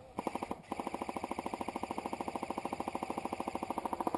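Airsoft electric gun firing on full auto: a short burst, then a long steady burst of about sixteen shots a second, each shot a sharp click over the gearbox hum.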